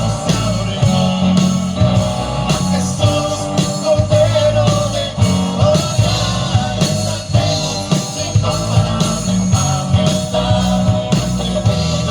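Loud rock-style music with a steady drum beat, bass and guitar, and some singing.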